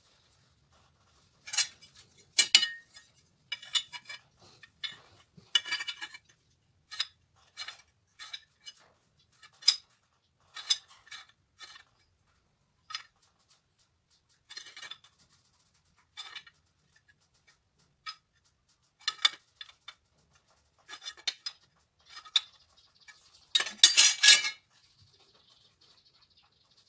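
Steel block and machinist's square clinking and tapping against the steel jaws of a lathe chuck while the block is set up in the chuck: scattered sharp metallic clicks, one or two a second, with a louder rattle of several knocks near the end.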